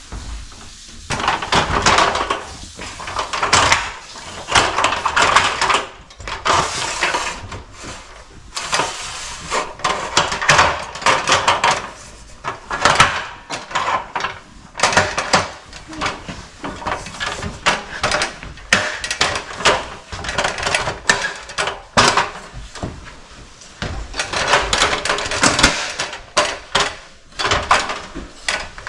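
Irregular rustling, scraping and clattering knocks of handling and movement, with no steady machine sound, mixed with an indistinct voice.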